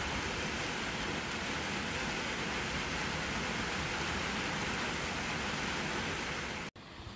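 Steady rain falling on puddled asphalt, an even hiss of drops splashing into standing water. It cuts off suddenly near the end.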